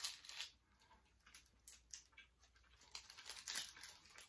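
Faint, intermittent crinkling of a plastic candy wrapper being handled, in scattered short crackles.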